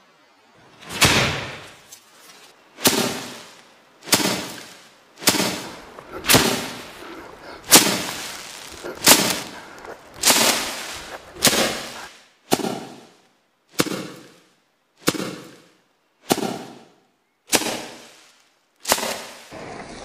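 A pile of dried rapeseed plants being threshed by hand: a pole beats down on the brittle stalks and pods about fifteen times, roughly once a second, each blow a sharp whack followed by a brief crackling rustle as the pods are knocked open.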